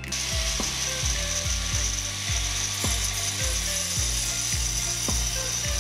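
DeWalt angle grinder cutting into a tubular steel turbo exhaust manifold, a steady high hiss that starts suddenly. Background music with a steady beat plays underneath.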